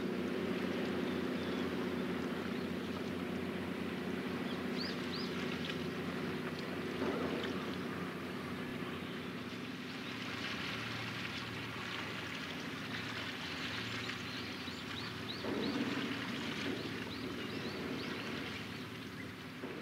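Waterfront ambience: a low steady engine hum, strongest over the first few seconds, under an even rush of wind and water. Short high bird chirps come in small bursts about five seconds in, through the middle and near the end.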